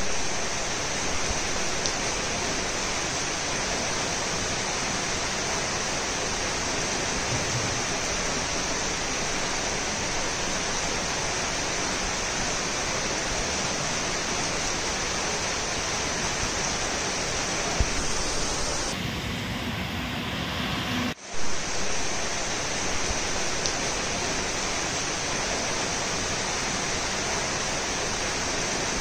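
Heavy rain falling in a steady, continuous hiss, which briefly changes character for a couple of seconds about two-thirds of the way through.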